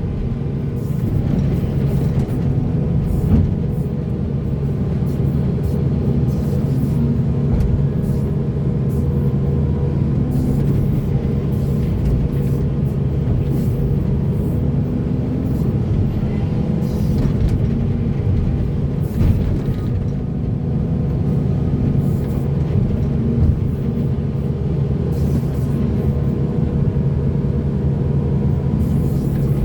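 Heavy diesel earthmoving machinery running steadily at a low pitch, with scattered sharp knocks and clanks through it.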